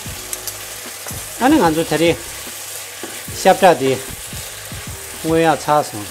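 Beef, bell peppers and onion sizzling in a frying pan as a wooden spatula stirs and tosses them, the last seasoning stage of a stir-fry. Three louder pitched sounds, each under a second, come about two seconds apart over the sizzle.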